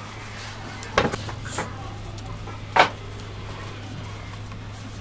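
Two sharp knocks a little under two seconds apart, with a lighter one between, as a sewing machine base box is tilted and handled, over a steady low hum.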